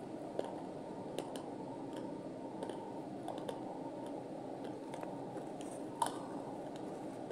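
Natural slate being crunched between the teeth, close to a clip-on microphone: scattered sharp crunches over a steady background hiss, the loudest about six seconds in.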